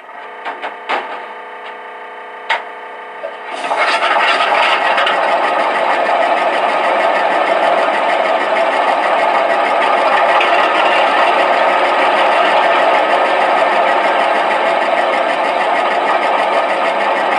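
Atlas O-scale GE 44-tonner's ProtoSound 3 sound system playing its diesel start-up. A few sharp clanks sound over a low hum, then at about three and a half seconds the engine sound catches and settles into a loud, steady diesel idle.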